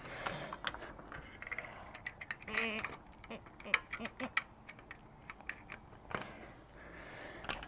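Light, irregular metal clicks and taps from hand work at the top of a suspension strut: the top nut and spring-cup hardware being fitted onto the strut shaft while the lowering spring is held compressed by hand.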